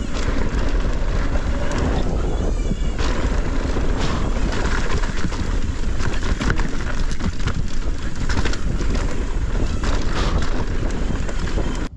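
Wind buffeting the microphone over the noise of mountain-bike tyres on a dirt trail, with many quick knocks and rattles as the bike bounces over rough ground on a fast downhill run. It stops abruptly near the end.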